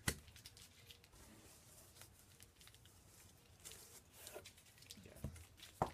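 Faint handling of cardboard packaging: a sharp knock at the very start and another near the end, with light taps and rustles between.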